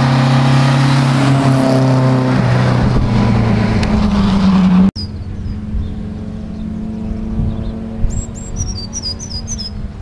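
A historic rally car's engine runs hard as the car approaches, its note stepping in pitch and rising just before it cuts off abruptly about five seconds in. After that a fainter steady engine note continues, and a bird chirps several times in quick succession near the end.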